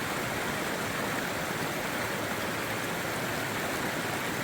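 Steady rush of river water flowing over rocks, an even unbroken hiss.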